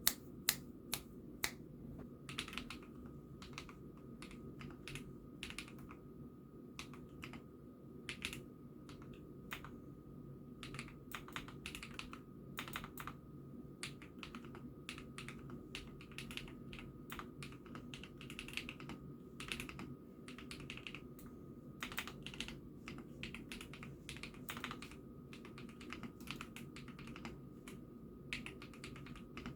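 Continuous typing on an IKKI68 Aurora hot-swap mechanical keyboard: quick, irregular keystroke clacks, several a second, with a few sharper hits about a second in. A steady low hum sits beneath.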